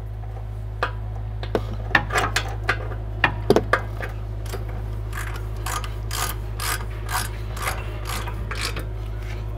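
Hand wrench working a rear brake caliper mounting bolt: a run of short metallic ratchet-like clicks, irregular for the first few seconds and then coming about twice a second, stopping shortly before the end.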